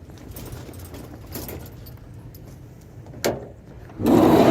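Light metal jingling and clinking, then a vehicle door sliding shut, a loud rush starting about four seconds in.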